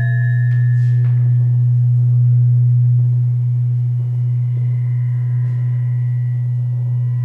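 Acoustic feedback from a no-input setup of condenser microphones aimed at active loudspeakers: a loud, steady low drone. Fainter higher tones fade out about a second in.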